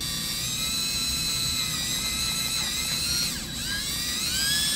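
DeWalt cordless drill spinning a step bit to enlarge a hole in a plastic compressor housing, its motor whining steadily. About three seconds in the pitch dips and recovers, then holds steady at a higher pitch.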